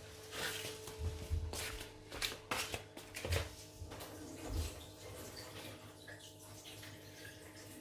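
Scattered clicks and knocks of plastic being handled as a washing machine's drain pump filter is twisted and pulled out, with water dripping out of the drain. The knocks come mostly in the first half and then die down.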